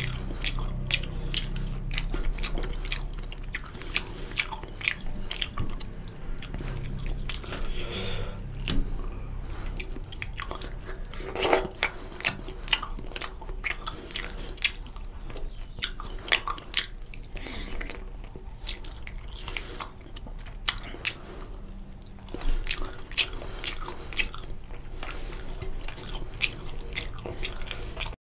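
Close-miked chewing of mouthfuls of rice and chicken curry, with many irregular wet mouth clicks and smacks.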